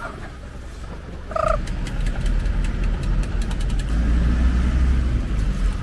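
A motor vehicle's engine running close by, a low rumble that starts about a second and a half in and grows louder near the end. A brief pitched tone sounds just as the rumble begins.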